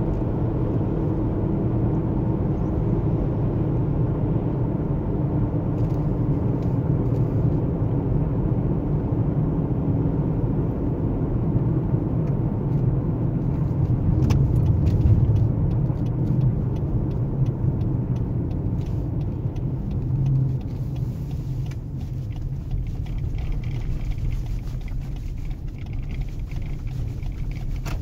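Steady low rumble of road and tyre noise inside a Lexus UX cabin while cruising on studded winter tyres, with a few faint clicks over it.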